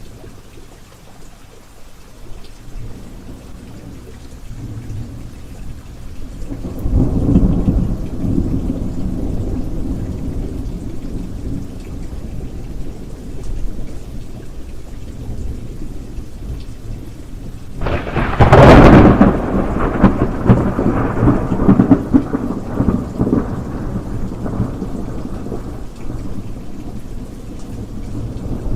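Steady rain with thunder: a low rolling rumble begins about a quarter of the way in, then a louder, sharp thunderclap comes about two-thirds through and rumbles on.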